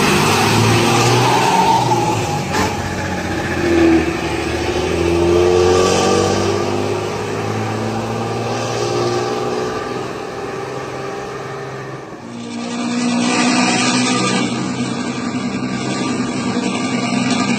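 Bus diesel engine heard through a shrill, raspy aftermarket 'cempreng' exhaust, rising in pitch twice as it revs and pulls away. About two-thirds of the way through, the sound changes abruptly to an engine running at a steady pitch.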